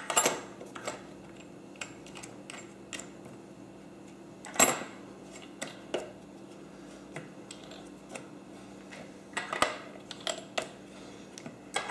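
Small metal clicks and clinks of wing nuts and bolts being handled and threaded onto a plywood clamp jig, with a sharper knock about four and a half seconds in and a cluster of clicks near the end.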